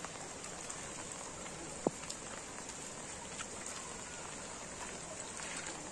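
Steady hiss of rain falling, with a single sharp click about two seconds in.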